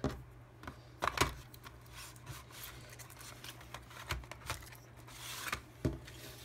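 Game cards and a cardboard box being handled as decks are put back into the box: scattered taps and knocks with cards rubbing and sliding, and a longer scraping rustle about five seconds in.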